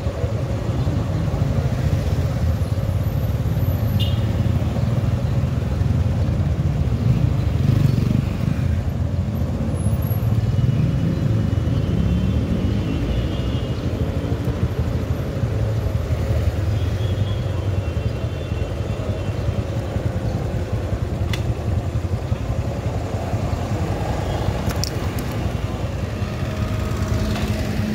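A motorcycle running on the road with a steady low rumble. The engine's pitch rises as it speeds up about ten seconds in.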